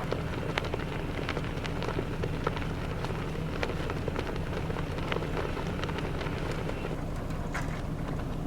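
Blizzard wind rushing over the microphone, with scattered sharp ticks of wind-driven snow and ice striking.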